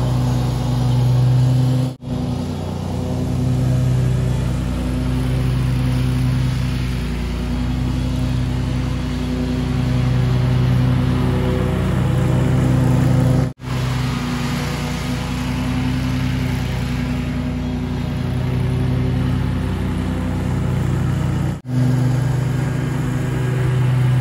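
Scag Tiger Cat II zero-turn mower's engine running steadily while it mows across the lawn, with three brief breaks in the sound.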